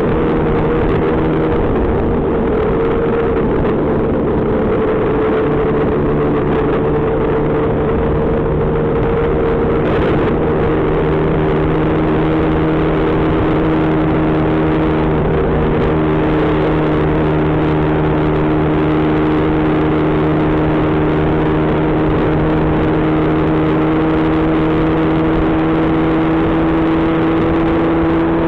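Lambretta GP scooter's two-stroke single-cylinder engine running at a steady cruise, its note holding nearly level, over a constant rush of road and wind noise.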